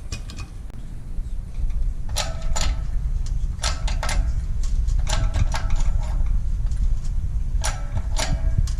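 Hand-pumped hydraulic shop press pressing a sleeve into a pulley: paired metallic clicks from the pump handle strokes, about every second and a half, over a steady low rumble.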